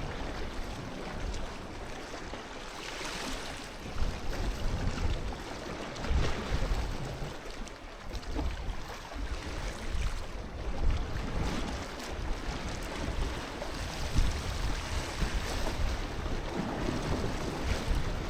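Sea waves washing in, swelling every few seconds, with wind buffeting the microphone.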